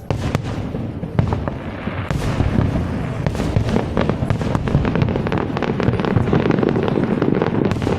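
Fireworks display: a dense volley of rapid bangs and crackles, thickening into an almost continuous barrage from about two seconds in.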